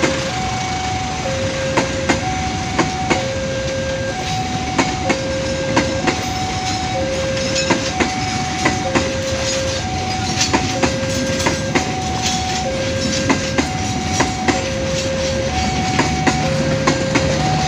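Passenger coaches of the KA Sancaka train rolling past, their wheels clicking in pairs over the rail joints about once a second. Throughout, an electronic two-tone alarm alternates a lower and a higher note, and a low hum joins near the end.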